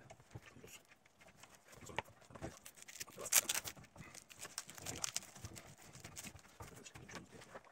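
Hands handling a tablet and a leather tablet case on a wooden table: irregular taps, knocks and rubbing, with a louder brushing scrape about three and a half seconds in.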